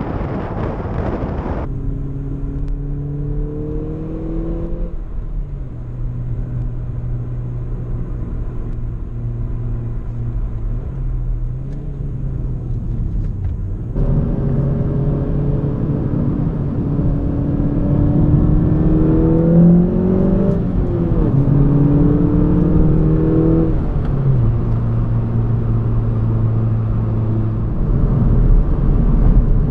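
Audi S1's turbocharged four-cylinder engine accelerating through the gears. The pitch climbs, drops at each upshift, then holds steady at a cruise; it gets louder about halfway in, heard from inside the cabin. Wind buffets the microphone for the first couple of seconds.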